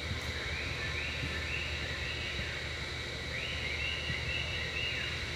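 A bird calling in two runs of short, even high notes over a steady low hum and background noise.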